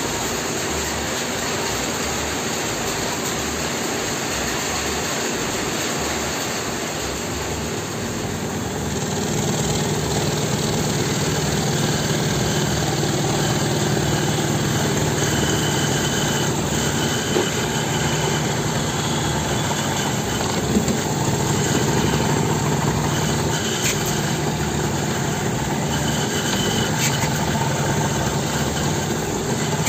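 Homemade heavy-duty scroll saw running steadily, its belt-driven motor humming while the reciprocating blade saws through plywood. It gets louder about nine seconds in.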